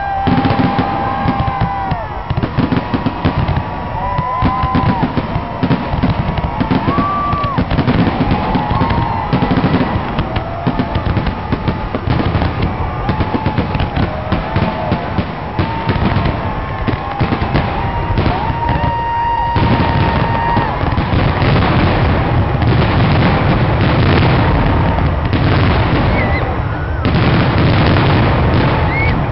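Aerial fireworks going off in rapid succession: a dense string of bangs and crackling with short whistles. About two-thirds of the way in, the bursts thicken into an almost continuous barrage.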